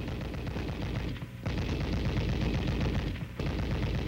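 M73 7.62mm tank machine gun firing on full automatic: two long bursts of rapid shots, with a brief break about a second and a half in.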